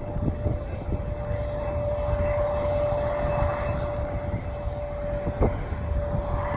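Airplane engine running with a steady high whine over a low rumble.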